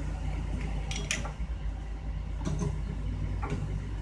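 Heavy diesel engine idling steadily, with a few sharp metallic clinks as lifting hooks, chain and a shackle are handled. The loudest clink comes about a second in.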